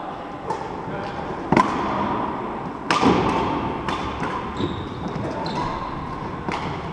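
Badminton rally: sharp strikes of rackets on the shuttlecock, about seven in all with the loudest about one and a half and three seconds in, together with players' shoes on the wooden court, echoing in the sports hall.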